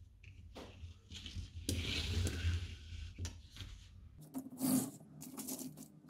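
Handling noises as a plastic parts box and loose strips of metal crimp terminals are moved on a work mat: irregular rubbing and scraping, loudest about two seconds in, with another burst near five seconds.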